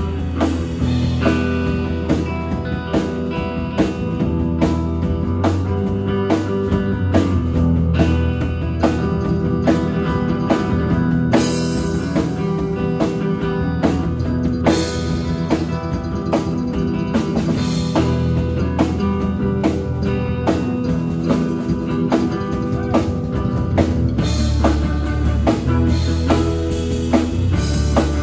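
A live band playing an instrumental jam with electric guitar, electric bass guitar and a drum kit, and the drums keeping a steady beat.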